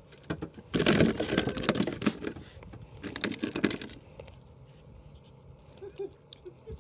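Close rustling and rattling handling noise in two bursts, a longer one about a second in and a shorter one about three seconds in, followed by a few faint clicks.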